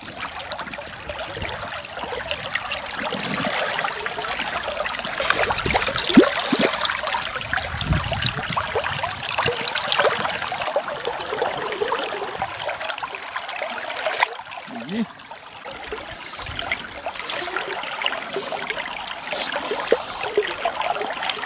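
Shallow river water running and trickling, with scattered splashes as hands release a grayling back into the current.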